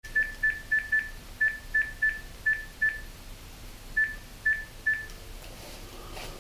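Phone keypad beeping as a number is dialled: about a dozen short beeps all at the same pitch, in quick irregular runs with a pause of about a second midway.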